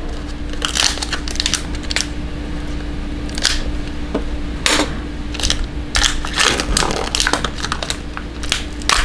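Hands opening a sealed trading card hobby box and its packs: irregular crinkling, tearing and tapping of cardboard and pack wrappers.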